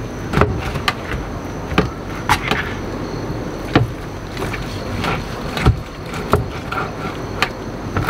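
Crisp pork crackling being cut and broken up: irregular sharp cracks and knocks, about a dozen in all, over a steady wind rumble.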